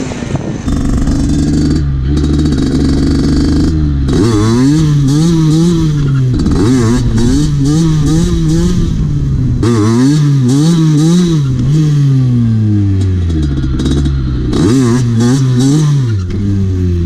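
Derbi Senda two-stroke moped engine with a 77cc Stage6 Streetrace kit, running at a steady pitch for about four seconds, then revving up and down again and again, about once a second, before dropping off near the end.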